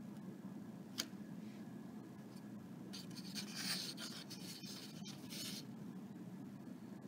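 Faint scraping and rubbing as a clay trinket dish and paintbrush are handled on a foam plate: a single sharp click about a second in, then a spell of scratchy rustling from about three to five and a half seconds in as the dish is gripped and picked up, over a steady low hum.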